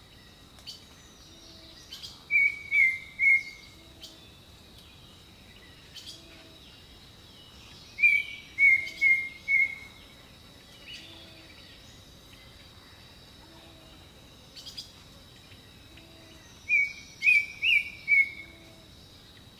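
A songbird singing a short phrase of three or four quick notes, repeated three times several seconds apart, over a faint steady high-pitched tone.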